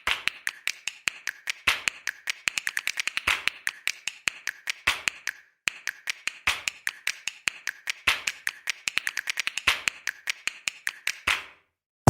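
A rapid series of sharp clicks in runs that speed up and slow down, with a short break about halfway through.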